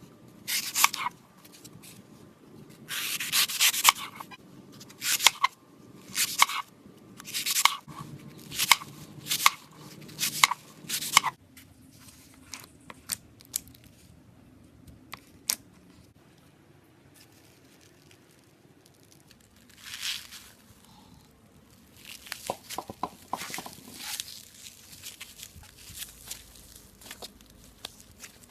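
Crunchy slime being squeezed and pressed: repeated bursts of crackling and crunching, close together for the first eleven seconds, then sparser ticks and another run of crackles from about twenty-two seconds.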